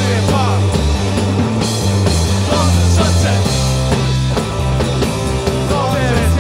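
Rock band playing a song live, full band music with held low notes that change in steps.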